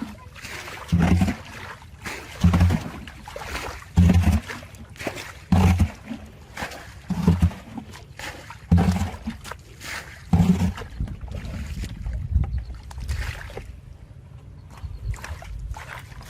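Water sloshing and splashing in a regular rhythm: eight heavy low splashes about a second and a half apart, then a steadier, quieter low rumble of moving water from about eleven seconds in.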